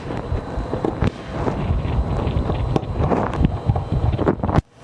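Handling noise from a motherboard being worked on an open-frame aluminium test bench: rubbing and shuffling with a few light clicks and knocks. It cuts off abruptly just before the end.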